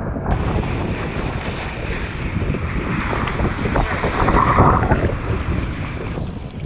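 Wind buffeting a camera microphone held at the water's surface, mixed with choppy waves sloshing. About four seconds in, a kiteboard passes close and its spray hisses briefly.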